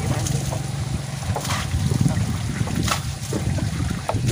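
Water thrown by hand from a bucket splashing against a tractor's front tyre and body, a few separate splashes about 1.5 and 3 seconds in, over a low steady drone.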